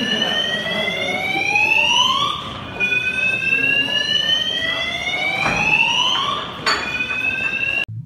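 A siren wailing: a tone that rises slowly in pitch over two to four seconds, drops back and rises again, over a steady rushing background. It cuts off abruptly near the end.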